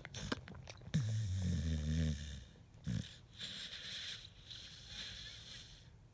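A sleeping pit bull snoring: one long, low, drawn-out snore about a second in, a short snort near three seconds, then breathy hissing breaths.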